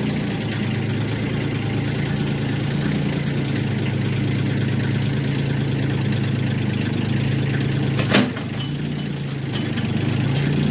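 An engine idling steadily, with a single sharp knock about eight seconds in, after which the engine note dips briefly.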